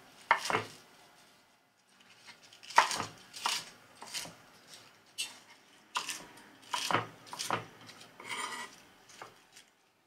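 Romaine and red leaf lettuce being torn by hand and cut with a kitchen knife on a wooden chopping board, in a string of separate, irregularly spaced cuts.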